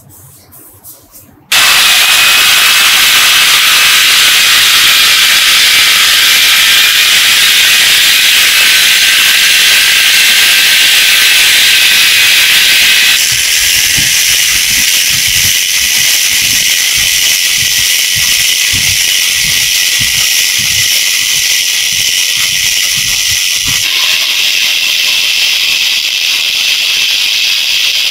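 A handheld power tool with a sanding disc running against a metal tube, stripping it to bare metal: a loud, steady hiss that starts suddenly about a second and a half in, after a few light handling clicks. The hiss changes abruptly twice, and a run of light knocks sounds through the middle.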